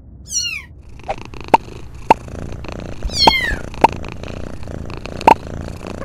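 Two short, high kitten mews, each falling in pitch, about three seconds apart, with several sharp pops scattered between them over a steady low background.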